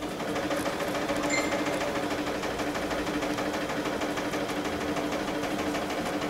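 Electric sewing machine running steadily, its motor hum and needle stroke holding an even speed.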